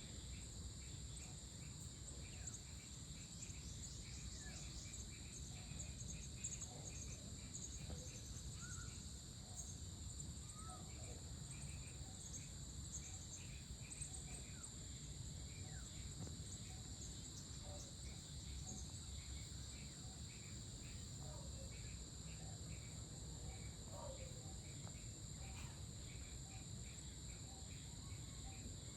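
Evening insect chorus: a steady, high-pitched trilling from several insects, with a fast pulsing insect call beneath it. Short bird chirps are scattered through it, over a faint low rumble.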